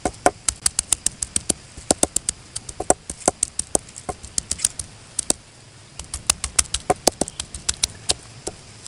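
A round hand stone pounding peeled garlic cloves on a wooden block: quick, sharp knocks about four a second, with a short pause a little past halfway.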